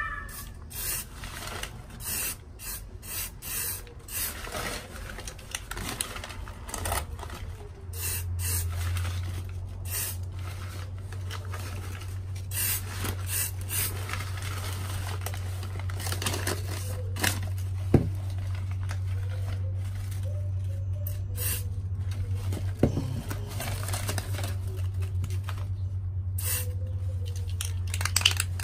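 Aerosol spray-paint can hissing in short, repeated bursts, with newspaper rustling as the pot is held and turned in the hand. A steady low hum sets in about eight seconds in.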